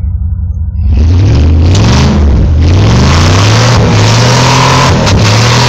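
Jeep Grand Cherokee's engine revving hard under load as it climbs a muddy slope. The pitch rises and falls several times over a heavy rushing noise, and the sound gets suddenly louder about a second in.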